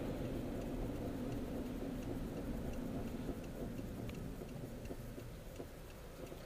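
Car turn-signal indicator clicking about twice a second, heard inside the cabin over a low engine and road rumble that gradually quietens.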